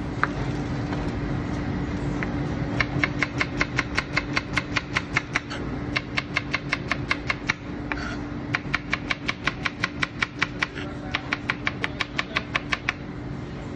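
Chef's knife slicing a shallot on a plastic cutting board: quick, even taps of the blade on the board at about five a second, in four runs with short pauses between. A steady low hum runs underneath.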